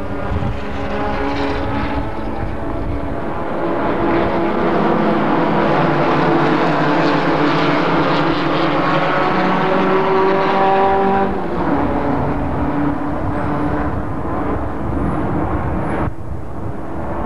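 Several sedan race car engines running hard as a pack goes by, their pitch climbing and the sound growing louder toward the middle, then dropping in pitch about two-thirds of the way through.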